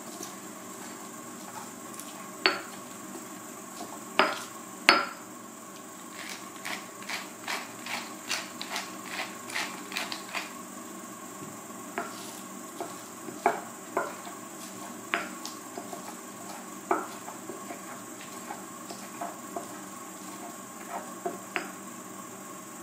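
Stone pestle pounding garlic in a white stone mortar: sharp knocks of stone on stone, three loud ones in the first few seconds, then a run of quicker, lighter taps about three a second, then scattered knocks.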